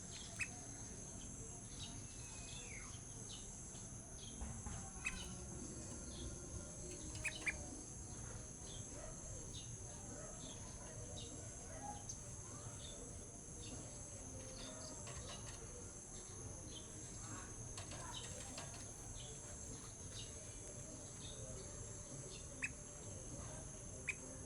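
A young sooty-headed bulbul (kutilang) giving scattered short chirps, with a brief gliding note a few seconds in, over a steady high-pitched drone.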